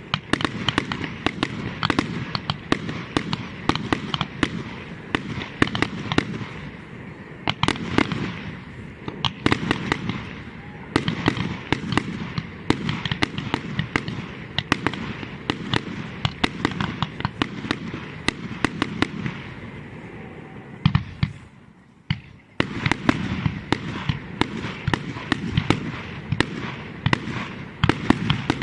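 Fireworks display: a dense, continuous run of sharp bangs and crackling, with a brief lull about three-quarters of the way through before the bangs resume.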